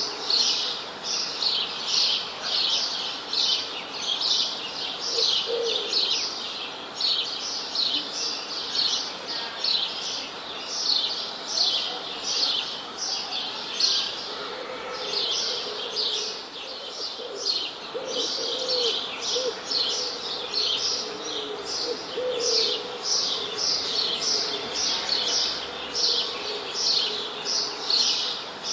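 Birds chirping without a break, a rapid run of short, high chirps several a second. Lower calls from another bird come in now and then, most of them in the middle of the stretch.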